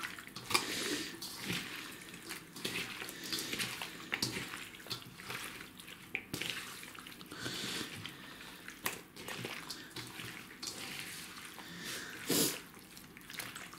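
A bare hand squelching through a marinade of small fish, sliced onions and sour cream in a metal bowl: an irregular run of wet squishes and slaps, with one louder squelch near the end.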